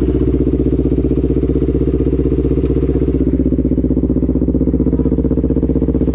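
Sport motorcycle with an F2 Racing RC Series aftermarket exhaust idling, a loud, steady, even engine note with no revving.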